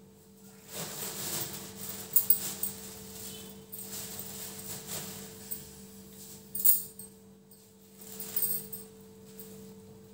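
Scattered metallic clinks and rustling of kitchenware being handled, with one sharp knock about two-thirds of the way through, over a steady low hum.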